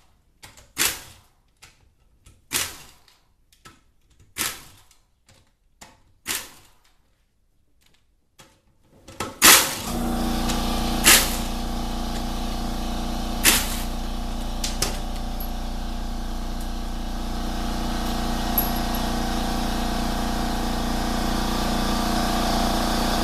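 Short bursts of a pneumatic tool running the transmission pump's 8 mm bolts, each burst separate with pauses between. About nine seconds in, a shop air compressor starts and runs with a steady hum. It cuts off suddenly at the very end.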